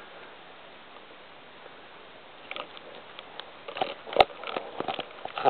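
A puppy moving about on bedding: scattered light rustles and a few sharp clicks, starting about two and a half seconds in after a quiet stretch.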